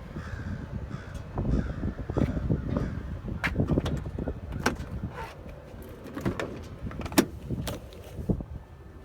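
A slide-out compartment in a work truck's service body being pulled out and handled: a run of irregular metal clunks, knocks and scrapes, with a short squeak near the start.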